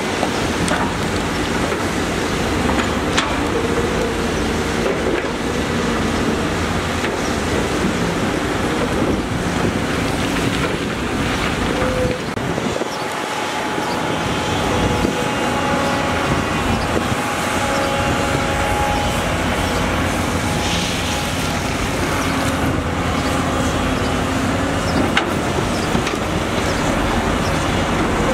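Heavy construction machinery running steadily, a continuous diesel engine noise, with wind on the microphone and a few sharp clicks.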